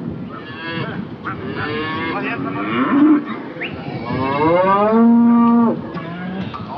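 Several head of cattle mooing with calls overlapping. The loudest is one long moo starting about four seconds in and lasting nearly two seconds.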